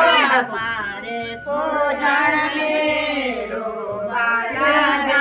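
Women's voices singing a devotional folk song during a puja, in slow, drawn-out melodic phrases with long held notes.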